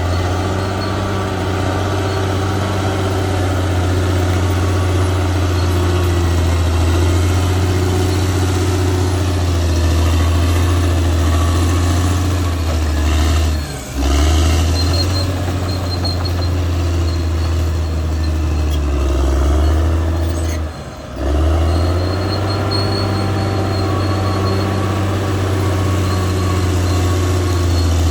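Caterpillar D6R XL bulldozer's diesel engine running steadily with a deep, low hum, briefly dropping away twice.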